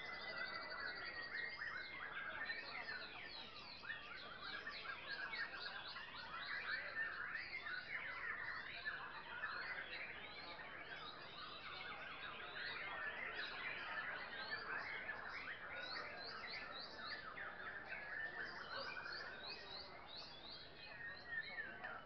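Many white-rumped shamas singing at once: a dense, unbroken chorus of quick chirps and whistled phrases overlapping one another.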